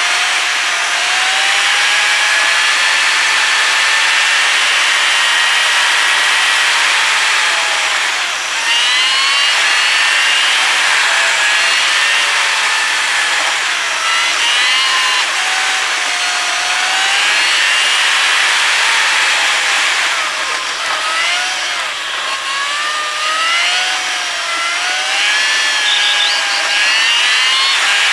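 Car driving on a highway, heard from inside the cabin: a steady hiss of road and wind noise with a whining engine note that rises and falls smoothly as the revs change.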